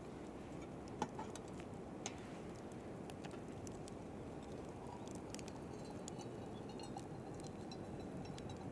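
Wood fire in a fire pit crackling, with a few sharp pops over a steady low rumble.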